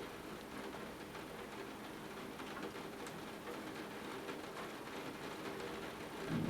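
Steady rain with faint ticks and drips. Just before the end a low thunder rumble swells in.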